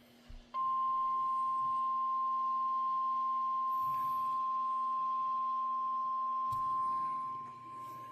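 NOAA Weather Radio's 1050 Hz warning alarm tone, a single steady high beep from a weather radio's speaker, starting about half a second in and holding one pitch, dropping in level about seven seconds in. It is the attention signal that marks an incoming alert message.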